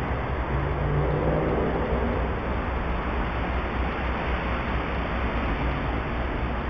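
Steady hiss and low rumble of distant road traffic, with an engine's hum swelling briefly about a second in.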